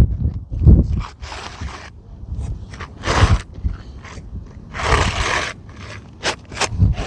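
A new three-tab asphalt shingle being slid into place under the course above: several gritty scrapes of shingle on shingle, with a few short sharp ticks near the end, over a low rumble.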